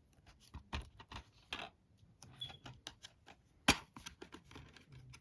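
Plastic shrink wrap on a DVD case being picked at and peeled off by hand: irregular crinkles and sharp plastic clicks, the loudest a single click about two-thirds of the way through.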